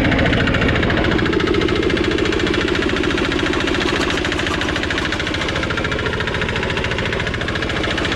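Small diesel engine running just above idle with a steady rapid knock, belt-driving a PE-100x150 jaw crusher as a handful of rocks is fed in and crushed quickly.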